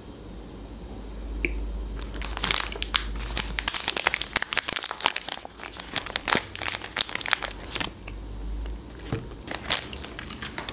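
Plastic film wrapper of a Kinder Milk Slice crinkling as it is pulled and torn open by hand. The crinkling starts about two seconds in, is dense for several seconds, pauses, then comes in a few more crackles near the end.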